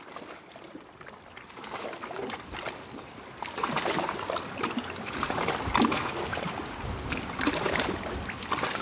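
Trickling, water-like sound texture, dense with fine ticks and droplets, swelling gradually out of near silence.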